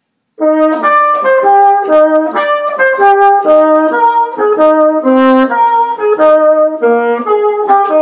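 Brass instrumental melody: a quick line of short, separate notes, starting about half a second in.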